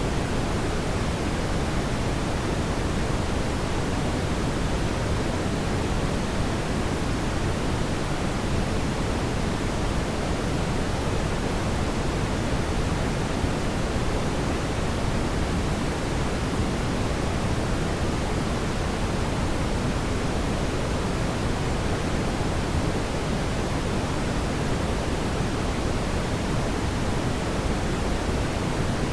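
Fireplace fire giving off a steady, even rush of noise that is heaviest in the low end, with no distinct pops or crackles standing out.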